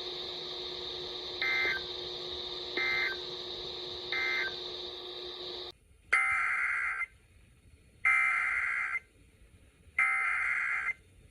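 Emergency Alert System SAME digital data bursts, a rapid two-tone warbling screech. First come three short end-of-message bursts over a steady electronic hum. After a sudden cut, three longer, louder header bursts follow about a second apart, marking the start of the next alert.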